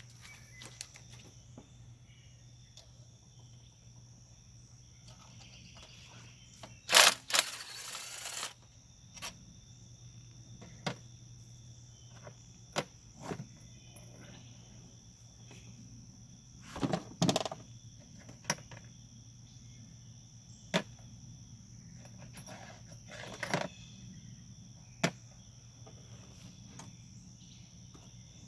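Scattered clicks and knocks of hand tools and loose metal engine parts being handled, with a louder clattering rattle about seven seconds in and another cluster of knocks around seventeen seconds, over a steady background hum.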